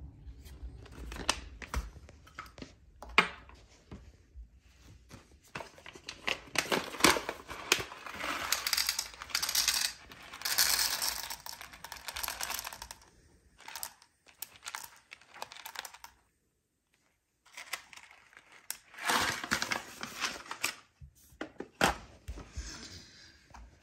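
A coffee bean bag crinkling and rustling as it is handled, opened and tipped, with coffee beans poured into a small plastic dosing cup. The sound comes in two long stretches of rustling with sharp clicks, separated by a short pause.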